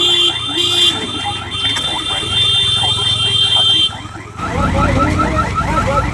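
An electric alarm ringing rapidly, with a steady high-pitched tone over it that cuts off about four seconds in. Then the low rumble of an EMU local train running past comes in.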